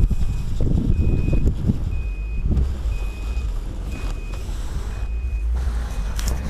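Snowmobile backing up, its reverse alarm beeping about once a second over the low rumble of the running engine.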